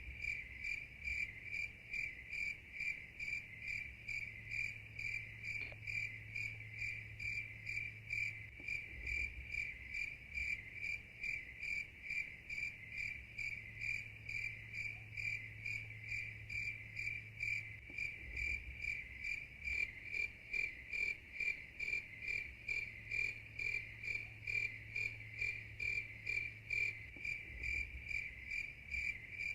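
Night insects, crickets or katydids, chirping in a steady, even rhythm of high-pitched pulses without a break.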